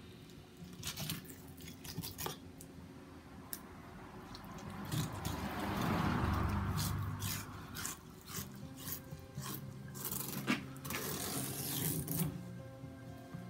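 Kitchen knife cutting and scraping along an opened conger eel on a plastic cutting board, with scattered clicks and taps and a longer scrape about halfway through.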